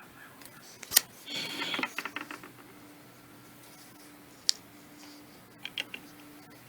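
Small hard objects being handled: a sharp click about a second in, a short clattering rattle right after, another single click midway, and a quick cluster of clicks near the end.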